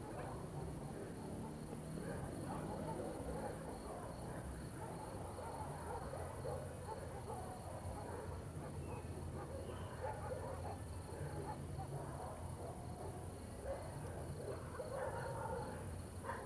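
Ambient soundscape: a steady low hum under a faint, evenly pulsing high chirping like insects, with faint scattered sounds in the middle range.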